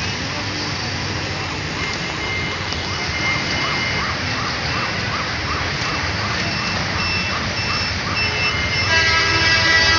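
Dense city road traffic: engines and tyre noise of auto-rickshaws, cars and buses. Through the middle a rapid electronic chirp repeats about three times a second for several seconds, and a vehicle horn sounds loudly near the end.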